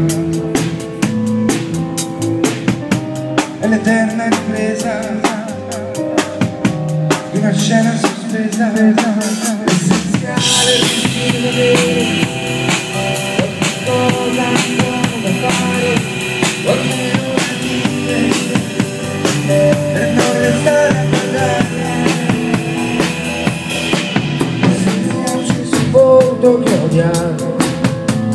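Live rock band playing an instrumental passage: drum kit with snare and bass drum keeping a steady beat under sustained guitar and keyboard-like notes, with cymbals getting brighter about ten seconds in.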